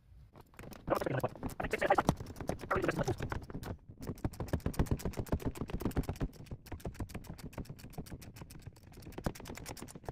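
Rapid, steady clicking of a ratchet driving in the seatbelt anchor bolt, with scraping and rustling of parts being handled for the first few seconds.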